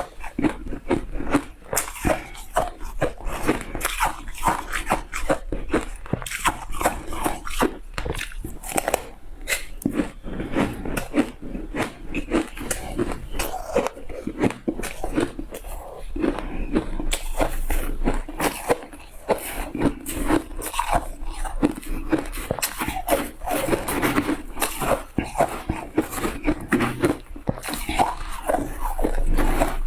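Shaved ice being bitten and chewed up close: dense, irregular crunching and crackling with wet mouth sounds between the bites.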